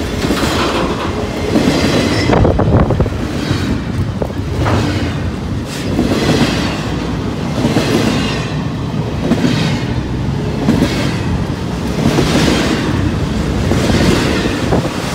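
Double-stack intermodal freight train passing close by: steel wheels rolling and clattering over the rails, with the rumble swelling and easing every second or two as the wheel sets of the well cars go by.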